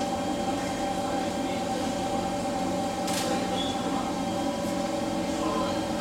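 Steady hum inside an SMRT C151 train car standing at a station platform, with one short click about three seconds in.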